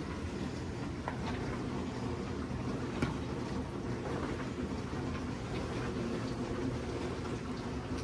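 Steady low hum of kitchen background noise, with a few faint clicks of a metal spoon against a marshmallow fluff jar and a glass baking dish as dollops of fluff are scooped out.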